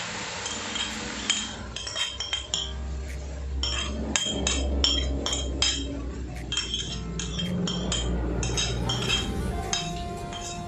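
Metal spoon clinking in a quick series of sharp strikes against a plate and the rim of an aluminium wok while ground garlic is scraped off into it. Hot oil sizzles at the start.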